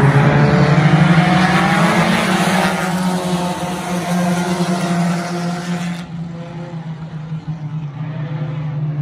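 Engines of small front-wheel-drive dirt-track race cars running as they pass along the straight. The engines are loudest in the first few seconds, then fade as the cars move away, and the hiss drops off abruptly about six seconds in.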